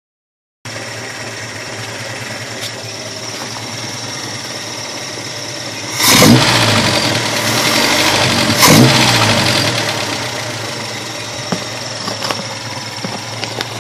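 1987 Toyota pickup's four-cylinder engine idling on its newly fitted carburetor and exhaust, revved up twice from the throttle at the carburetor, about six and nine seconds in, each time falling back to a steady idle.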